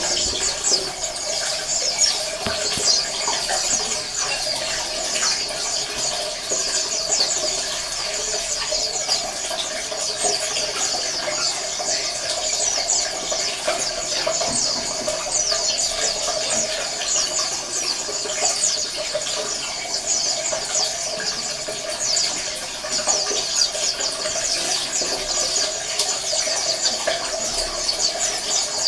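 A flock of white-eyes (pleci) chirping and twittering nonstop, with many quick high-pitched calls overlapping into a dense chorus.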